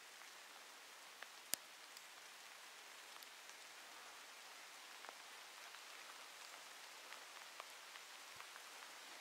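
Faint patter of light rain, with scattered small drop ticks and one sharper tick about one and a half seconds in.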